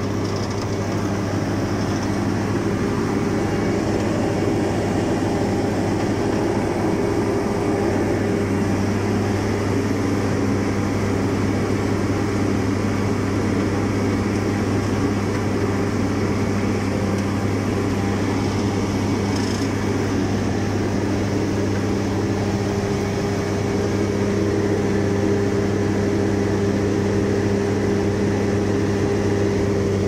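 Asphalt paver's diesel engine and paving machinery running at a steady drone, with a constant low hum.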